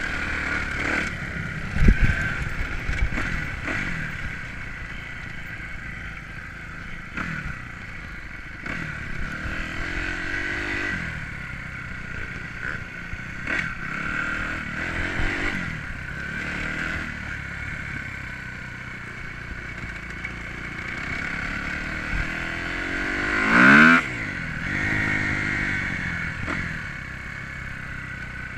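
2009 Kawasaki KX250F single-cylinder four-stroke motocross engine revving up and down as the bike is ridden hard, with the chassis clattering over the bumpy dirt. A sharp knock comes about two seconds in, and the loudest rising rev comes near the end.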